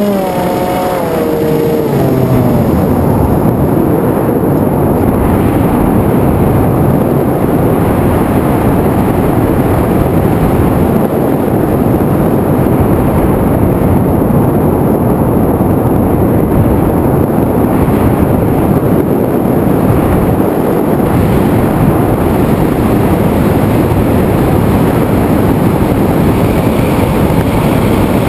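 Loud rushing noise of an FPV aircraft in flight, heard through its onboard camera microphone: motor and propeller noise mixed with wind on the microphone. A motor tone drops in pitch over the first two seconds as the throttle comes down, then the rush stays steady.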